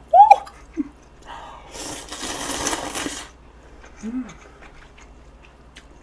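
Eating sounds from a person eating spicy braised short ribs with glass noodles: a short high vocal squeak right at the start, then about two seconds of breathy hissing noise, and a brief low hum near the middle.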